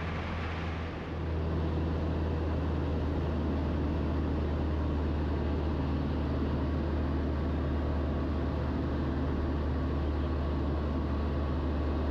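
Single-engine propeller aircraft's engine and propeller droning steadily, heard inside the canopied cockpit. The drone dips briefly about a second in, then carries on a little louder.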